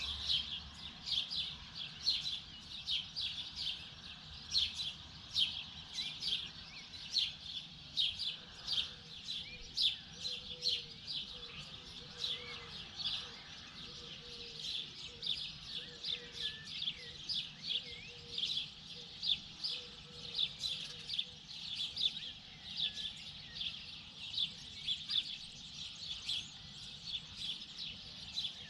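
Many small birds chirping together in a dense morning chorus: short, high chirps several times a second, unbroken throughout. A faint, lower call repeats steadily for a while in the middle.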